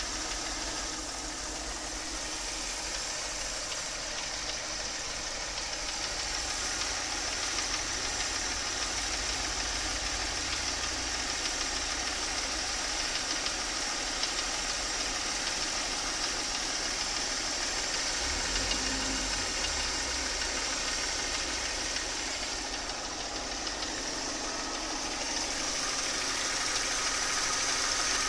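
Mercedes-Benz M272 V6 engine idling warm with a knock in it, which is most audible from the left side of the engine.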